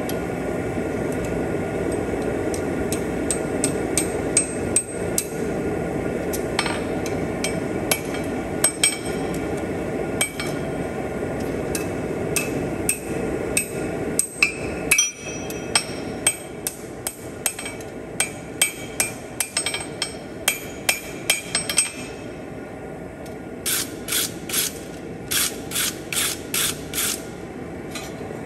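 Hand hammer striking steel on an anvil while forging split calipers: many light, irregular blows, then near the end a quicker run of about ten sharper, ringing strikes, roughly three a second. A steady rushing noise runs underneath.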